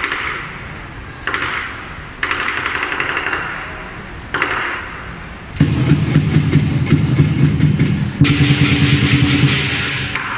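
Southern lion dance percussion: a pair of cymbals crashes four times in the first half, each crash ringing and fading. From about five and a half seconds the big lion dance drum takes up a fast, continuous roll with the cymbals clashing along, and it gets louder a little past eight seconds.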